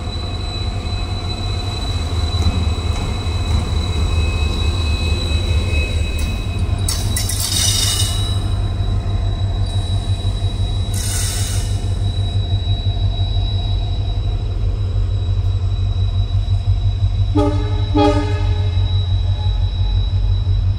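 A pair of WDP4D diesel-electric locomotives running light, their EMD two-stroke V16 engines giving a steady low rumble. Two short bursts of hiss come around the middle, and two short horn blasts sound near the end.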